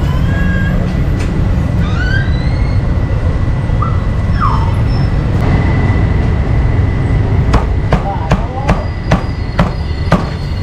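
Steady low rumble of street traffic with background voices; in the second half, a quick run of about eight sharp cleaver chops on a chopping board as meat is cut up.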